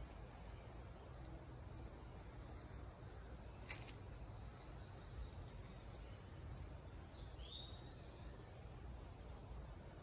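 Faint outdoor garden ambience: a low steady rumble, with high thin chirping that comes and goes. A bird calls once about seven seconds in, and a single sharp click comes near four seconds.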